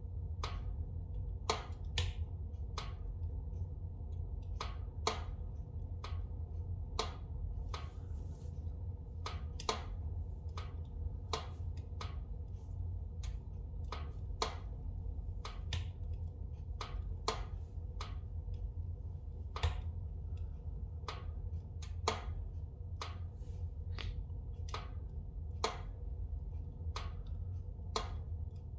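Spruce logs burning in a fireplace: sharp, irregular crackles and pops, about one or two a second, over a steady low rumble.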